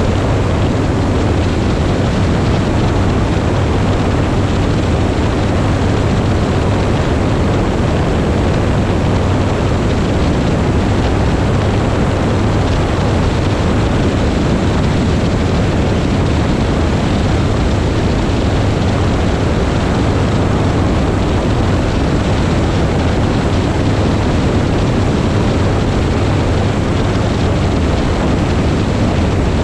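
Motorcycle engine running at a steady pace while riding, mixed with wind rushing over the microphone.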